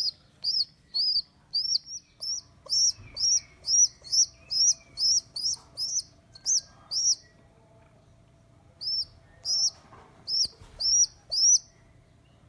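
Baby pigeon squeaking: a run of short, high peeps, about two a second, each rising then falling in pitch. The peeps stop for about two seconds past the middle, then start again for a few more.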